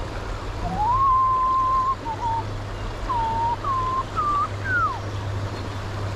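A man whistling a slow tune: a long held note, then a string of short notes that slide up and down. Under it runs the steady rush of a fast, rocky stream.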